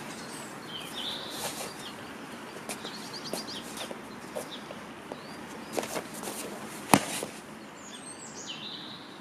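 Birds calling over a steady outdoor hiss, with one sharp slap about seven seconds in as a partner is thrown down onto the foam mat.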